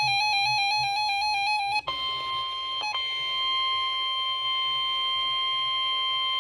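A warbling electronic tone that flips rapidly between two pitches, then, about two seconds in, the steady 1050 Hz NOAA Weather Radio warning alarm tone. This is the attention signal that comes before a spoken weather warning.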